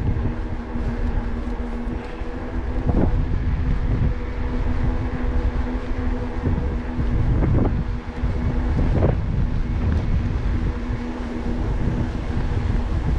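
A Decathlon Rockrider e-bike being ridden: heavy wind rumble on the microphone over a steady hum from the moving bike, which fades out about ten seconds in.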